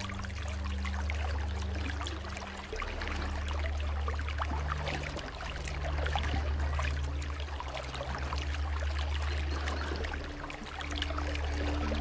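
Shallow stream water flowing and splashing over rocks, a continuous crackly rush. Under it, soft background music of sustained low notes that shift pitch every second or two.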